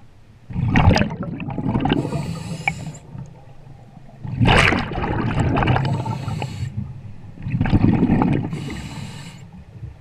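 Scuba diver breathing through a regulator underwater: three breaths about three and a half seconds apart. Each is a burst of bubbling rumble followed by a thinner hiss.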